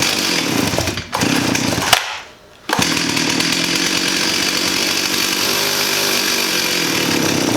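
Stihl 028 AV Super two-stroke chainsaw engine firing on choke: it runs, falters about a second in, cuts out for about half a second after the two-second mark, then catches again and runs steadily before dying at the end. It will only keep running on choke, which could mean a blockage in the carburetor.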